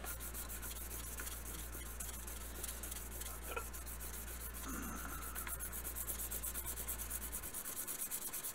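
Hand-sanding a steel axe head: sandpaper rubbed in quick, even back-and-forth strokes over the punch-engraved face, the strokes getting faster and louder in the second half.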